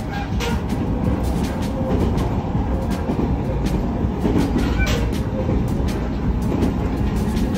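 Moving train heard from inside a passenger car: a steady rumble of wheels on rail, with scattered short clicks.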